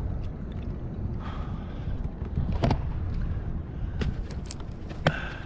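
Steady low rumble of wind on the microphone and water around a fishing kayak's hull, with a few sharp knocks and clicks from gear being handled on the kayak, about two and a half, four and five seconds in.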